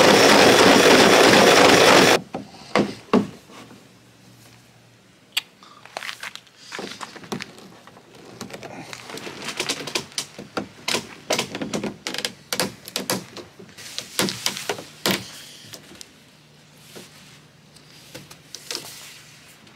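Cordless drill running into a plastic canoe seat, loud and steady, cutting off about two seconds in. After it come scattered knocks, clicks and rubbing as PVC pipes are pushed into their fittings and handled.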